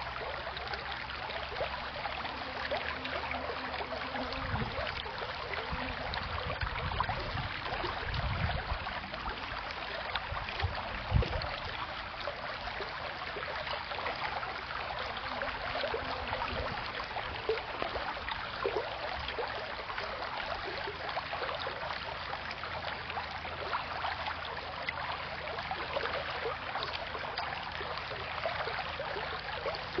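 Shallow creek rippling steadily over a cobble bed. A few low thumps, the loudest about eleven seconds in.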